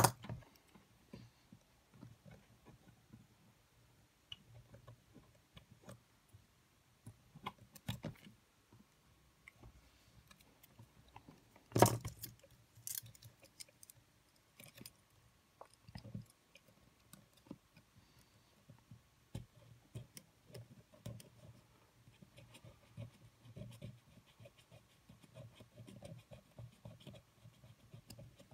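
Small metal tool clicking and scraping against the tape mechanism of a Sony EX999 cassette Walkman as it is worked on by hand, with one sharper click about 12 seconds in.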